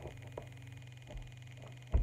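Dull thumps of a person's feet and knees landing on a carpeted floor during a gymnastics move, three times, the last and loudest near the end, over a steady low hum.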